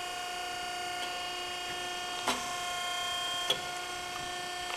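A 17-ton hydra-mechanical press brake runs with a steady whine as its ram is cycled on the dual palm control. Two sharp clicks come in the middle, a little over a second apart, with a higher tone between them.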